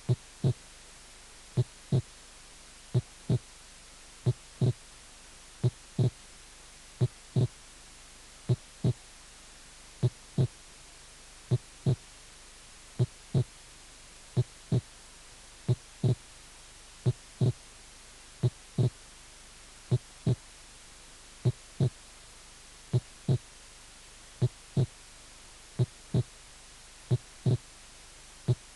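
Heart sounds demonstrating physiological splitting of the second heart sound: a steady lub-dub, a pair of short thumps repeating about every 1.4 s.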